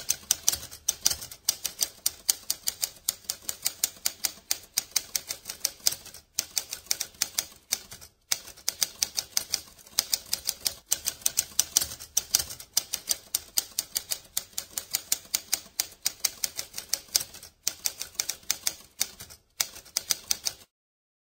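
Typewriter typing: rapid key strikes, several a second, in a steady run broken by a few short pauses, stopping shortly before the end.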